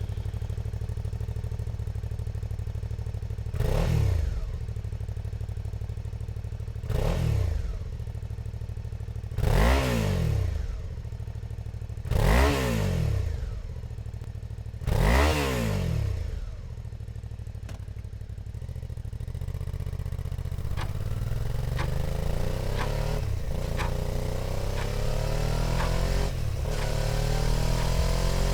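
Suzuki motorcycle engine idling, blipped five times with quick rises and falls in revs. It then climbs gradually in pitch with several breaks, as if shifting up through the gears under acceleration.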